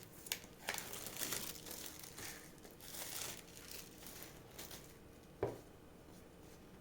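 Plastic wrapping on a phone box crinkling and tearing as it is pulled off, in irregular rustling bursts, followed by a single light knock about five seconds in.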